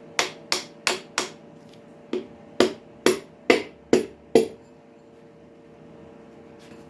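Light, sharp taps on a piston ring compressor and piston seated on a Ford 351 Windsor engine block, squaring the compressor up so the ringed piston slides into its bore. About ten taps come roughly three a second, in two runs with a short pause, and stop about four and a half seconds in.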